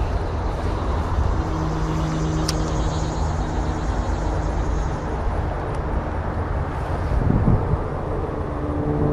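Steady drone of highway traffic passing overhead, with a low rumble and held engine tones, one vehicle swelling past about seven seconds in.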